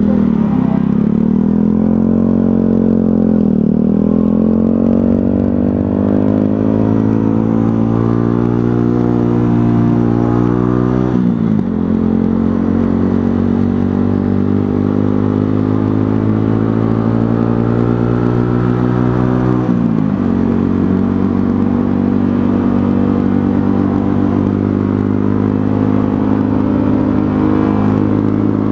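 125cc motorcycle engine under way, pulling through the gears. Its pitch climbs and drops sharply at upshifts about 3.5, 11 and 20 seconds in, then holds fairly steady toward the end.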